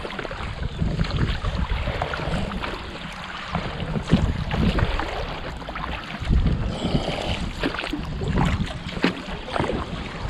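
Water splashing and lapping around a small boat on a river, with irregular knocks and splashes, and wind rumbling on the microphone.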